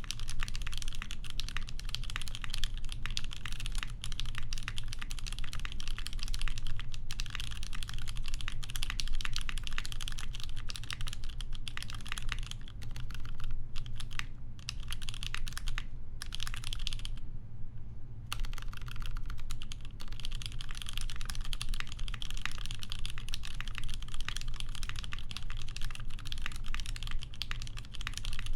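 Steady typing on a custom mechanical keyboard with lubed and filmed Cherry MX Vintage Black linear switches, GMK keycaps on an aluminum plate in a polycarbonate case: a fast, continuous clatter of keystrokes with a few short pauses, the longest about a second long around the middle. A steady low hum sits underneath.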